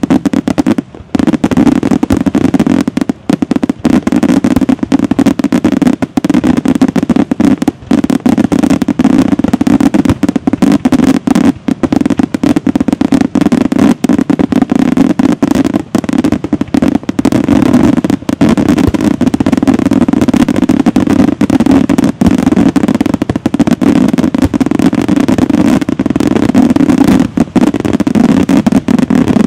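Daytime aerial fireworks: a loud, near-continuous barrage of rapid shell bursts and bangs, with no let-up.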